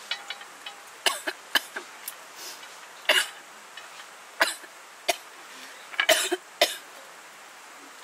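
A woman coughing: a string of short coughs in clusters over several seconds, the loudest about three and six seconds in.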